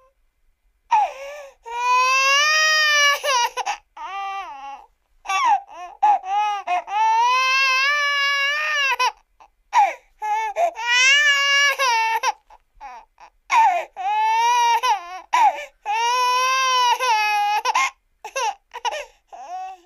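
Cartoon cougar crying sound effect: a run of high, drawn-out wailing cries with wavering pitch, each about one to three seconds long, broken by short pauses.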